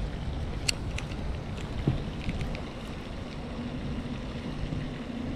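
Wind buffeting the microphone as a steady low rumble, with a sharp click about a second in and a fainter tick about two seconds in.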